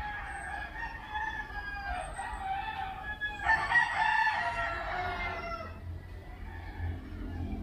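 A rooster crowing: two long crows one after the other, the second louder.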